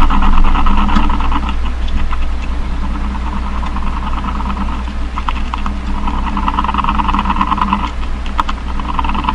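Made-up creature call: rapid clicking, rattling chatter over a steady low hum. The clicking comes in two dense spells, from the start to about two seconds in and again from about five to eight seconds, with sparser clicks between and after.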